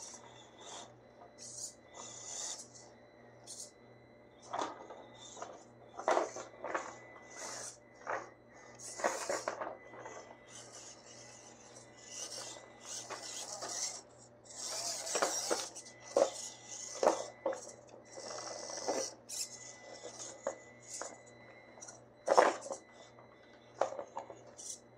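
Traxxas TRX-4M Bronco mini RC crawler climbing over hard 3D-printed plastic rocks: irregular scraping, knocking and clattering as its tires and chassis grind and drop against the rock pieces, over a faint steady high whine.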